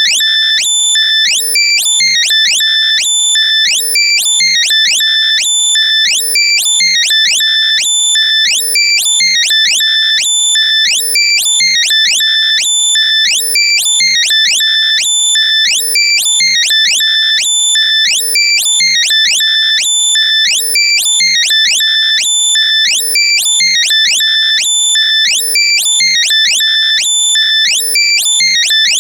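Loud synthesized locator alert for finding lost earbuds: high electronic beeps with rapid upward chirps, a pattern that repeats about every two seconds.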